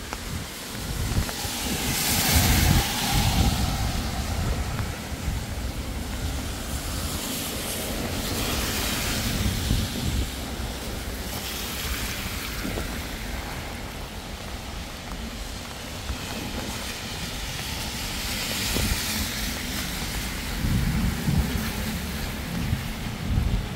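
Heavy rain falling, with vehicles passing on the wet street: tyre hiss swells and fades four times, loudest about two seconds in.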